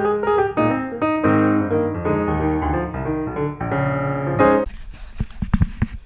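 Piano background music playing a run of changing notes, which cuts off about four and a half seconds in to outdoor noise with several low thumps.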